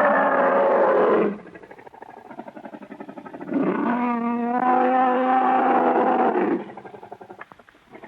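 Monster roar sound effect: a rough, pitched roar cuts off about a second in, then after a pause a second roar of about three seconds swells and fades out.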